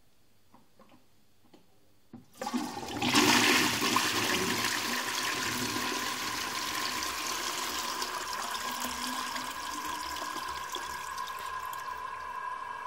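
A few faint clicks, then a toilet flushing about two seconds in: a sudden loud rush of water that settles into steady running water with a thin, steady whistling tone as the bowl and cistern refill.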